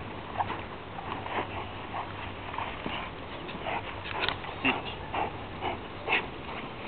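An 11-month-old German shepherd making short, irregular sounds, about two a second, while it grips and tugs a jute bite sleeve in protection training.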